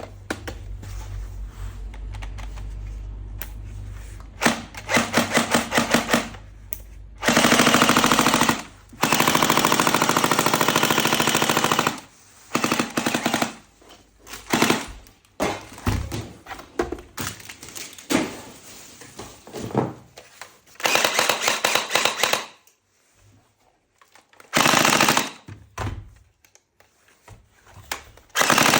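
Toy M416 rifle firing bursts of rapid automatic-fire sound, from under a second to about three seconds long, with pauses and small clicks between them.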